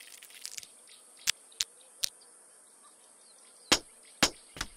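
Short, sharp cartoon clicks, three in the first half and three more near the end, irregularly spaced, over a faint steady high-pitched hiss of forest ambience.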